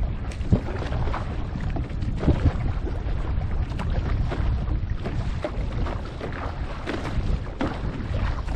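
Wind buffeting a GoPro's microphone in a steady low rumble, with water slapping and splashing irregularly against a board.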